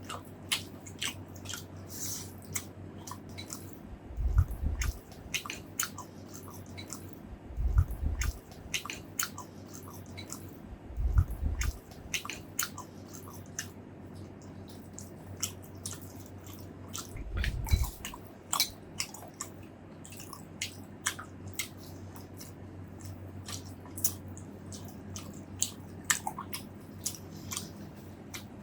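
A person chewing and biting food close to the microphone: many crisp, wet clicks and crunches, with a few dull low thumps among them.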